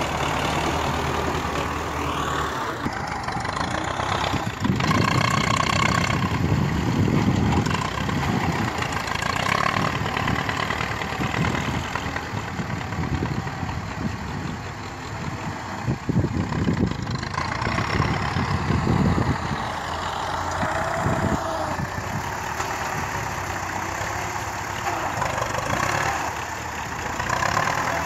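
Diesel tractor engines running, a front-end loader tractor working soil and loading a trolley, the engine note swelling in surges under load a few seconds in and again past the middle.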